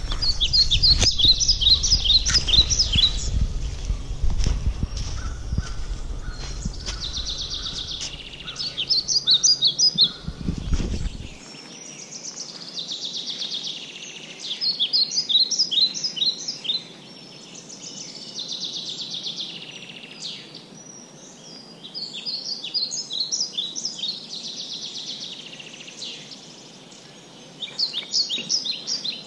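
Small birds singing in repeated phrases of quick, high chirping notes, a new phrase every few seconds. For the first ten seconds or so there are also low rustles and thumps of footsteps over dry leaf litter, which stop abruptly.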